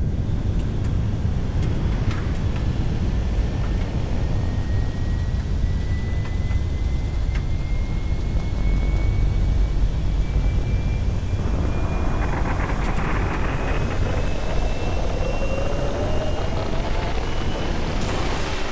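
Sci-fi sound effects of a starfighter in flight: a loud, steady engine rumble with a thin whine that rises slowly in pitch. About twelve seconds in, the noise thickens and a second, lower whine joins, also climbing.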